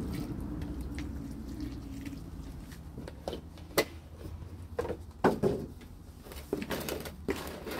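Water poured into dry potting soil in a bin, fading out over the first couple of seconds, then irregular squishes and scrapes as the wet soil is mixed.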